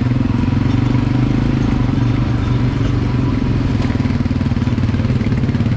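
ATV engine running steadily under way, a continuous low engine note with a fast even pulse.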